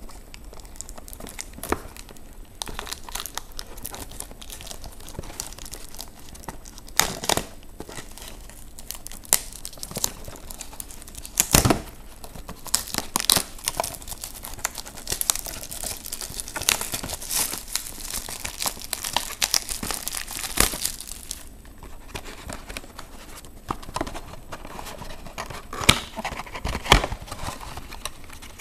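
Plastic packaging of a trading-card box and its packs being crinkled and torn open by hand. Irregular crackles and sharp snaps, with a longer spell of dense crinkling in the middle.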